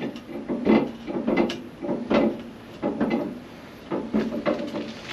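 A car lift lowering a Jeep Renegade, with a series of creaks and clunks coming roughly every half second to a second as it goes down.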